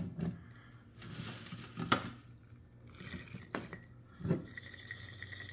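Shrimp being packed by hand into a glass quart jar: soft rustling and squishing, with a few light clicks against the glass.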